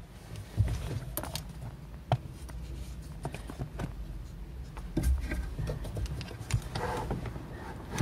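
Scattered light clicks and knocks, with rubbing and handling noise, as the clutch pedal of a Mitsubishi Minicab Clipper kei truck is worked by hand just after its worn pedal-stopper rubber was replaced.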